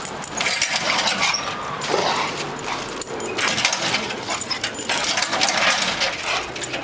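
Red-nose pit bull whining excitedly while leaping at and chasing a springpole lure, with repeated metallic jingling and rattling throughout.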